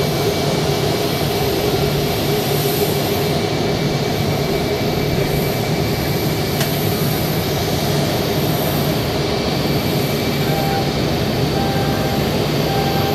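Airbus A321-231's IAE V2500 turbofan engines running at taxi thrust as the airliner taxis, a steady whine over an even rush.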